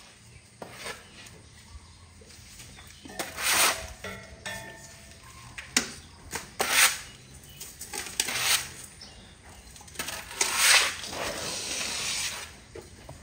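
Stiff broom sweeping a wet concrete floor: a run of irregular swishing, scraping strokes, the longest near the end.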